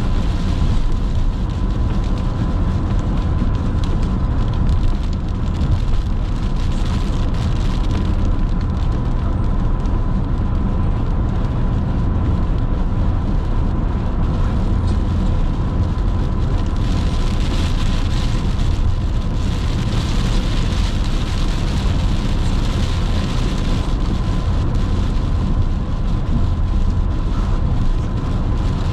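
Car driving at highway speed on a wet road: steady low road and tyre rumble with a hiss of rain and tyre spray, which grows louder for a few seconds past the middle. A faint steady high tone sits underneath.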